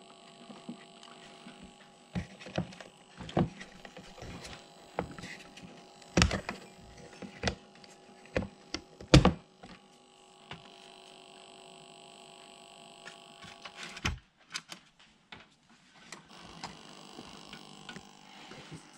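Scattered clicks and knocks of small hard objects being handled, irregular and unevenly spaced, the loudest about six and nine seconds in, over a faint steady hum.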